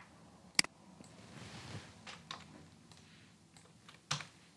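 Two computer mouse clicks: a sharp one about half a second in and another near the end. A few faint ticks fall between them.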